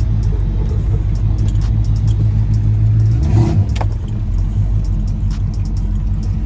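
1987 Chevrolet Monte Carlo SS's V8 running with a steady low exhaust rumble, swelling briefly about three and a half seconds in before settling again, with scattered light clicks over it.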